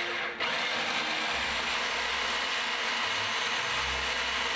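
Electric food processor running, grinding canned chickpeas. It is briefly stopped and restarted just after the start, then runs steadily.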